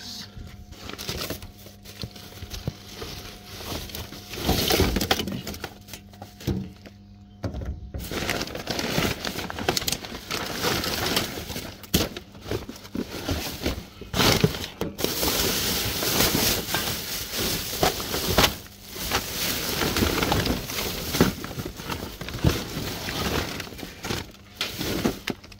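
Gloved hands rummaging through a recycling bin full of cardboard, plastic bags and paper: continual rustling and crinkling of plastic and paper with irregular knocks of cardboard boxes being moved.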